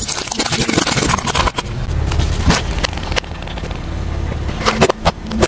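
Hard plastic crunching and cracking as a car tyre crushes a plastic toy. After about two seconds the crackle gives way to the low rumble of the car, with a few sharp snaps near the end.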